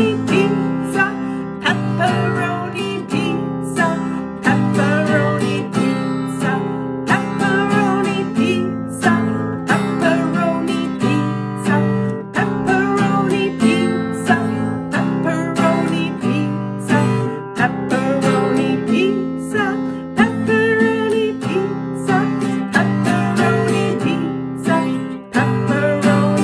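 Acoustic guitar strummed in a steady rhythm, with a woman's voice joining in at times as she chants the words along with it.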